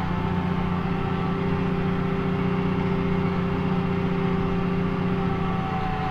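McCormick G135 Max tractor's diesel engine running steadily, heard from inside the cab: an even drone with a steady, fainter whine above it.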